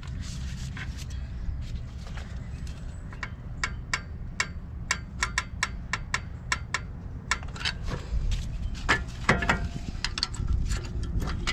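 Sharp metallic clicks and taps, a few a second and irregular, as a hand tool works the brake caliper to press its piston back in. A steady low rumble lies underneath.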